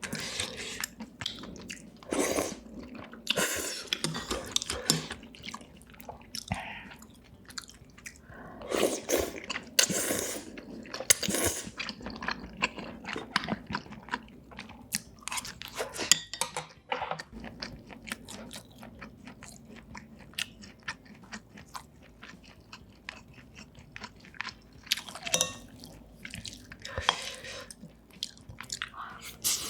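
Close-miked eating: a person biting and chewing food, with irregular wet clicks and occasional crunches, louder in a few short clusters.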